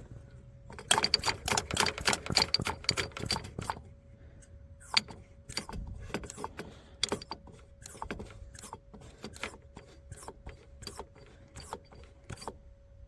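Quick mechanical clicking while air is bled from a diesel fuel filter and injection pump. The clicks come in a fast run for about three seconds, then slow to about two a second. Under them runs a faint steady hum from the electric lift pump.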